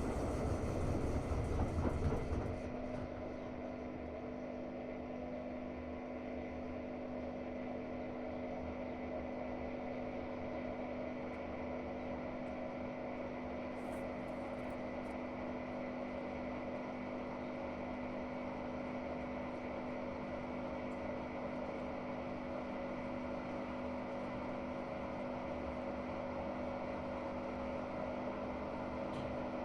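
Hotpoint-Ariston washing machine running, its brushless inverter motor giving a steady hum. A louder rushing noise for the first two seconds or so drops away to the steady hum.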